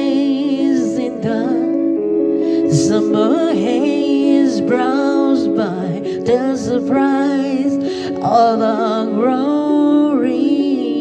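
Music: a slow ballad, a solo voice singing with vibrato over held keyboard chords.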